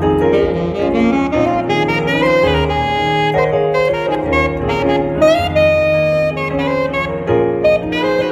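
Instrumental jazz-style music: a saxophone-toned lead melody of held notes over piano chords and a stepping bass line.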